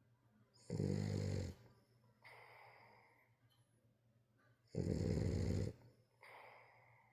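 French bulldog snoring: two loud snores about four seconds apart, each followed by a quieter breath.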